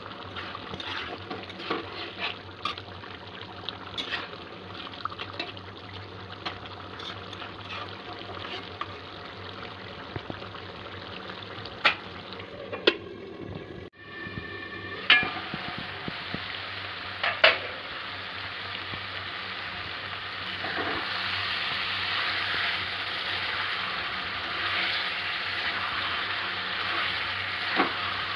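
Chicken curry sizzling and bubbling in a steel kadai while a spatula scrapes and taps against the pan. A few sharp metal clinks come around the middle, where a lid is handled over the pan, and the frying hiss grows louder and denser in the last third.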